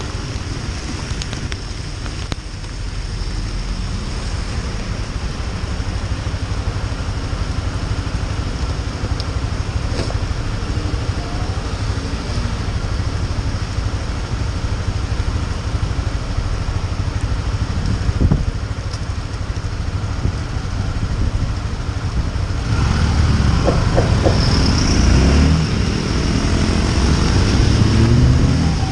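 Honda CB Twister 250F's single-cylinder engine running while riding in heavy rain, with steady road, wind and rain hiss on the action-camera microphone. It grows louder about 23 seconds in.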